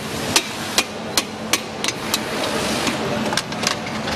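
A run of sharp knocks, about two or three a second with a short pause past the middle, over the steady hum and noise of factory machinery.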